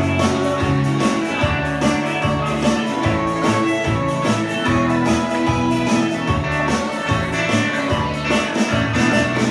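Country music with guitar over a steady bass beat, with no singing in this stretch.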